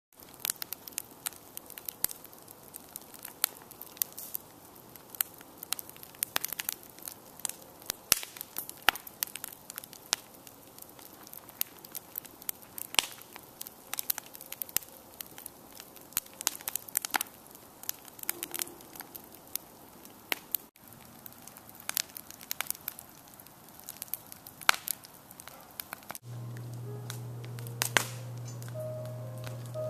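Wood fire crackling in a fire pit: irregular sharp pops and snaps over a steady low hiss. About 26 seconds in, the sound changes to a steady low hum with a few faint tones.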